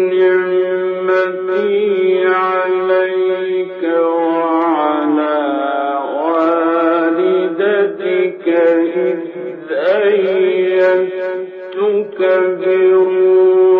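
A male Quran reciter's voice in melodic recitation, holding long notes that wind up and down in pitch. It comes from an old recording and sounds muffled, with no high treble.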